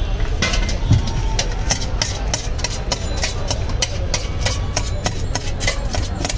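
A flat mixing blade clinking rapidly and regularly against the inside of a steel tin as jhal muri is stirred and tossed, several strikes a second, over a steady low rumble.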